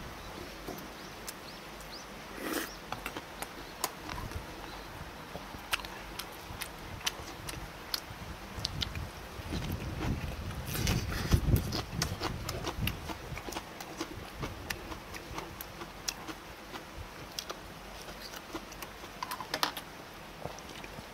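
Close-miked eating sounds: chewing and lip-smacking, with many short sharp clicks of chopsticks and a spoon against bowls. The chewing is loudest about ten seconds in.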